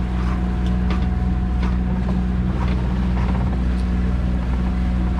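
A sailboat's engine runs at a steady speed, a constant low drone with no change in pitch.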